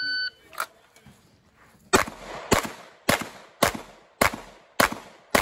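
An electronic shot timer gives one short start beep, then a pistol fires seven shots at an even pace, a little under two a second, beginning about two seconds in.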